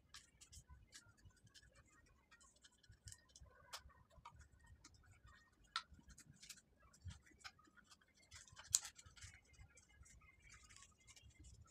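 Near silence with faint, scattered clicks and light rustling of hands handling a plastic soda bottle, and one sharper click about three-quarters of the way through.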